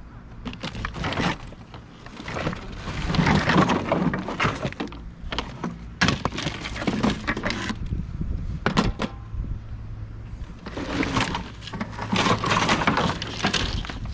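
Rummaging through trash in a dumpster: empty cardboard boxes and debris being shifted and tossed aside, in irregular spells of crackling and crumpling with sharp knocks.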